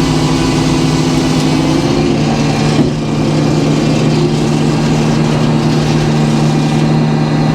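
Sawmill's engine running steadily, its pitch dropping slightly about two seconds in, with a single knock shortly after.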